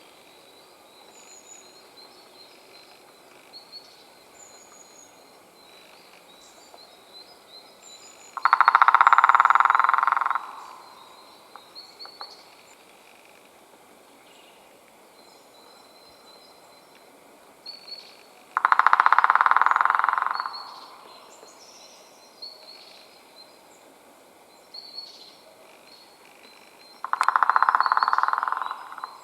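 White-backed woodpecker drumming on wood: three long, rapid drum rolls about ten seconds apart, each lasting about two seconds and trailing off at the end. This is spring drumming, the woodpecker's territorial and courtship signal. Faint high bird chirps sound between the rolls.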